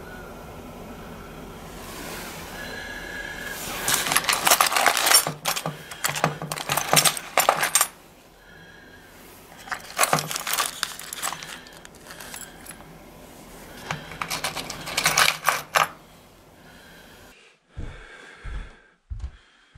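Metal spoon lures and treble hooks clinking and jangling against one another in a plastic tackle box, in three bouts of rattling. A few dull thumps follow near the end.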